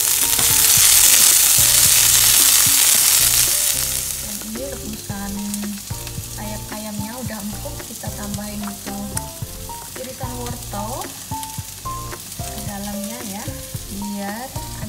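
Ginger, garlic and onion slices sizzling in hot oil in a wok, loud for the first four seconds or so. After that the sizzle drops to a fainter hiss, with background music notes playing over it.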